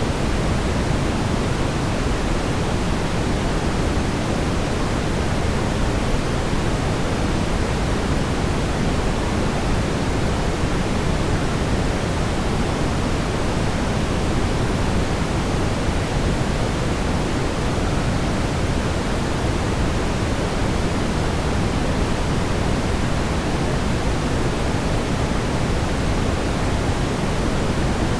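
Steady brown noise: an even, deep rumbling hiss with most of its weight in the low end, unchanging throughout.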